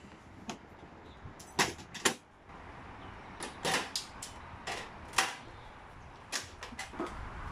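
A portable gas camping stove being handled: its plastic carry case opened and a gas canister fitted, giving about ten scattered plastic and metal clicks and knocks.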